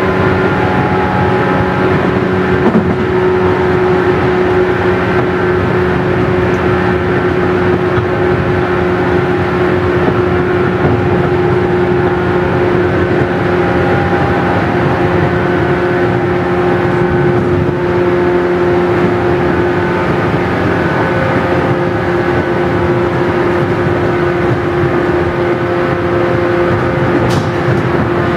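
JR 117 series 100-subseries electric train running at a steady speed, heard from inside the carriage: the motor hum holds one unchanging pitch over continuous rolling noise.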